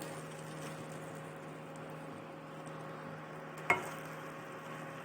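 Wheat flour roasting in ghee in a kadhai while being stirred: a soft, steady sizzle, with one sharp knock about three and a half seconds in.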